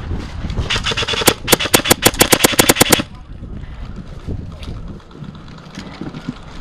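Airsoft gun firing a rapid full-auto burst of about nine shots a second for roughly two seconds, cutting off sharply about three seconds in.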